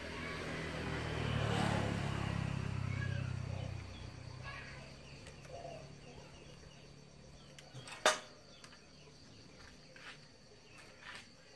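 For the first four seconds a low droning hum swells and then fades away. After that come the light clicks and taps of metal spikes and wire being worked onto a bamboo pole by hand, with one sharp click about eight seconds in, over faint insects chirping.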